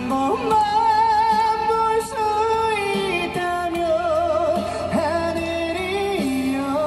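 Music with a singing voice: a melody sung in long, wavering notes that step up and down over a steady backing.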